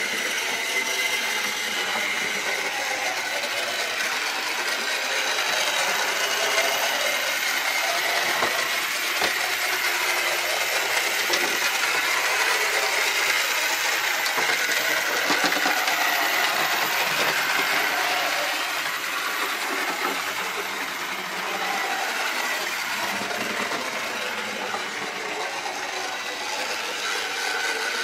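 A 1976 Airfix Railway System OO-gauge Great Western prairie tank model locomotive running along the track pulling two coaches. Its small electric motor and gears make a steady mechanical running noise that swells a little and dips briefly about two-thirds of the way through.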